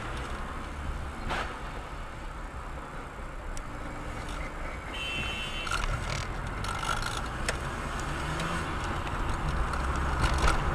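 Car on the road: steady low engine and road rumble, slowly growing louder, with a few faint scattered clicks.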